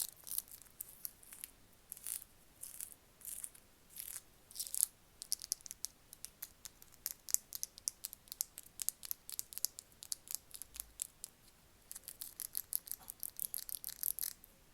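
Crisp, close-up ASMR clicking and scratching sounds: irregular at first, then a fast run of light taps and scrapes from about five seconds in.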